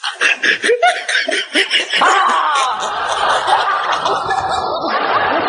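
Laughter: a quick run of ha-ha bursts, then, from about two seconds in, a denser sound of many voices laughing together that cuts off suddenly at the end.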